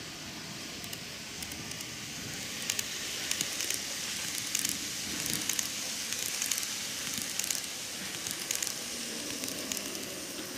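N-gauge model train (KATO Tokyu 5000 series) running past close by on track: steady rolling noise with a stream of sharp clicks from the wheels over the rail joints, swelling as the cars pass and easing near the end.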